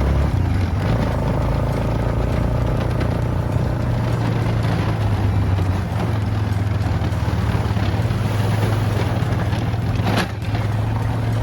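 Tractor engine running steadily at a constant speed, with one short click near the end.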